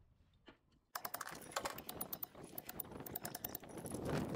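Rapid, irregular clicking and scraping of a small metal pointing tool worked against the lime mortar joints of a brick chimney, starting about a second in.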